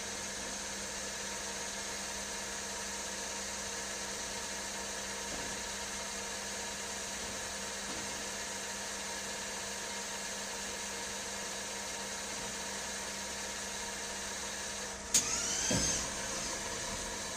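Tornos Deco 26a Swiss-type CNC lathe running with a steady mechanical hum. Near the end, a sharp click is followed by about a second of whine sweeping in pitch, like a spindle or drive changing speed.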